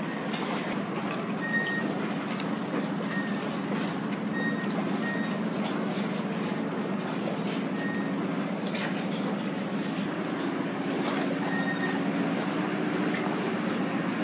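Steady low rumble of engines at a container terminal while a tug pushes a container ship's hull. Over it come short high warning beeps, singly and in pairs, every couple of seconds, from terminal machinery.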